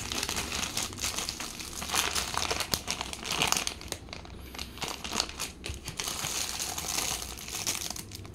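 Thin clear plastic bags crinkling and rustling as they are handled, each holding a small plastic aquarium ornament; irregular crackling with a short lull about halfway.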